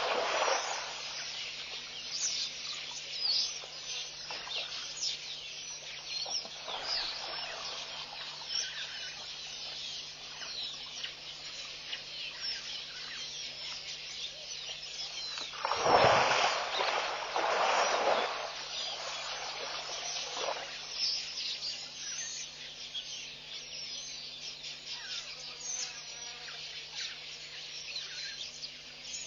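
Birds chirping and calling, in many short notes, over a faint steady low hum. About sixteen seconds in, a louder rush of noise lasts about two seconds.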